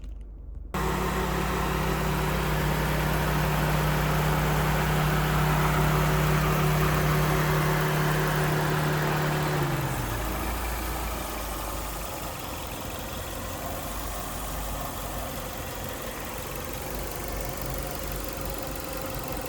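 Toyota Altezza RS200's 2.0-litre inline-four engine running at idle. A steady hum drops in pitch and fades about halfway through, leaving a steadier, rougher running noise.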